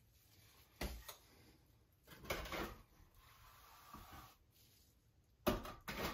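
A steel notched trowel working thinset mortar: two sharp knocks about a second in, a scraping stretch a little after two seconds, and two loud knocks near the end.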